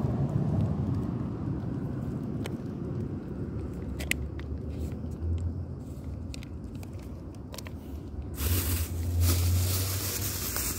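A cat chewing and licking wet food chunks in gravy, heard as scattered short wet clicks over a steady low rumble. A louder rushing noise comes in about eight seconds in.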